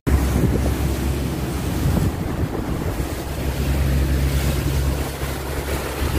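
A boat's engine running steadily as the boat moves through the water, a low hum under wind buffeting the microphone and water rushing past the hull.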